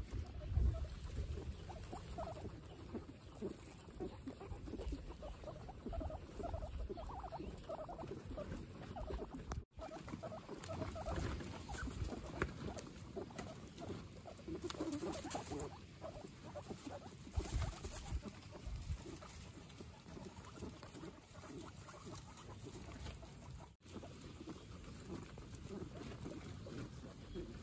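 Several guinea pigs munching fresh grass: a dense, irregular patter of small crunching bites and chewing, with the grass rustling as they pull at it. The sound cuts out briefly twice.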